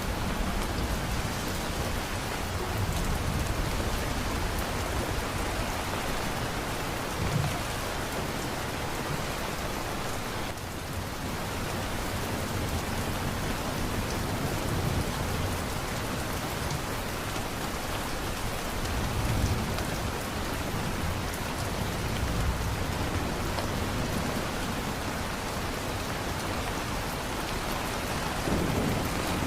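Heavy rainstorm: steady rain pouring down, with low rumbles of thunder swelling up now and then.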